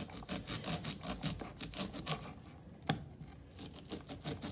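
A kitchen knife scraping down a raw corn cob on a wooden cutting board, shaving off the kernels in quick repeated strokes, about four a second. The strokes pause briefly past the two-second mark, with one sharper click near three seconds.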